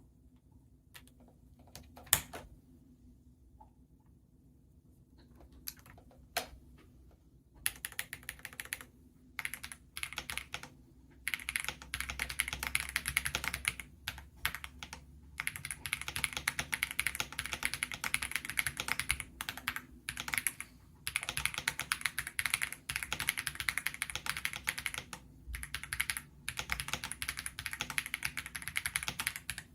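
Typing on a budget 96% mechanical keyboard: a few single keystrokes, one louder than the rest, then fast continuous typing from about eight seconds in, broken by short pauses.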